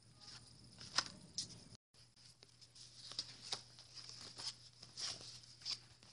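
Faint handling noise near the microphone: scattered rustles and small taps, with one sharper click about a second in, over a steady low hum and hiss. The sound drops out for a moment just before two seconds in.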